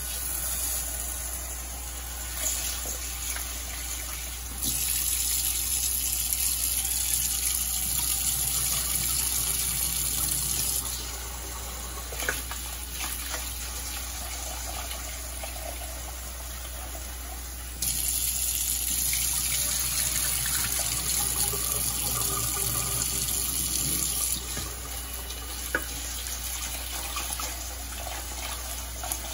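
Kitchen tap running into a stainless steel bowl of red lentils while a hand swishes them through the water, rinsing the lentils. The rush of water grows louder and hissier twice, for about six seconds each, with a few small clinks against the bowl.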